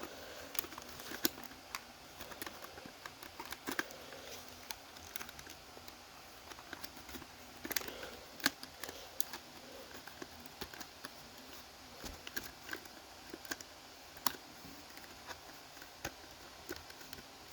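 Irregular light clicks and taps of a plastic smoke alarm being handled.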